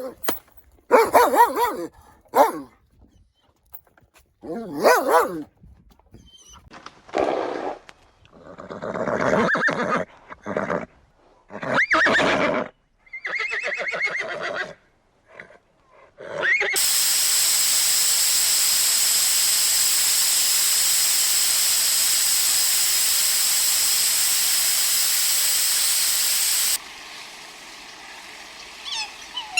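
A horse whinnying, about seven separate calls spaced a second or two apart. They give way to a steady hiss lasting about ten seconds, which cuts off suddenly.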